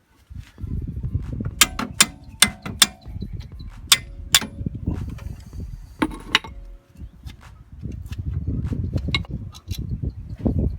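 Sharp metallic clicks and taps of a wrench and socket on the brake caliper bolts as they are worked loose, several with a short ring, coming irregularly in a cluster and once more later. An uneven low rumble runs beneath them.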